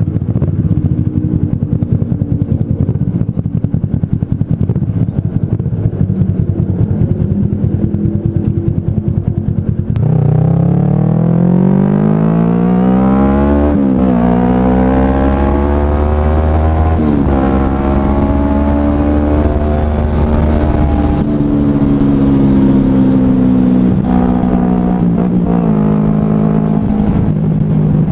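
Kawasaki Ninja 250 carburetted parallel-twin engine running at low revs, then about ten seconds in accelerating: the revs climb, drop at two gear changes, then settle into steady cruising.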